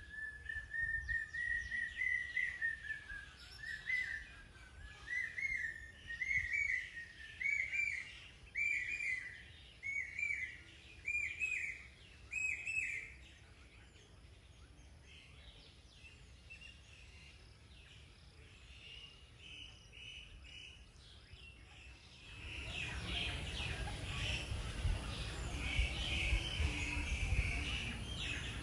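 A bird calling a long whistle, then a series of short arched notes, about one a second, slowly climbing in pitch. After a quieter stretch, several birds chirp busily over steady outdoor noise near the end.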